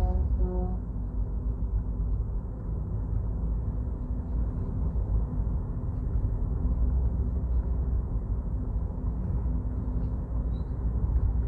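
Steady low road and engine rumble of a car driving along, heard from inside the cabin. A short pitched tone sounds right at the start.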